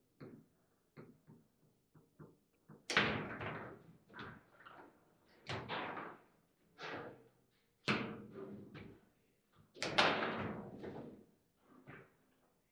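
Foosball table in play: a string of sharp knocks and slams as the ball is struck by the figures on the rods and bangs off the table walls. The hardest hits come about three seconds in and again near ten seconds.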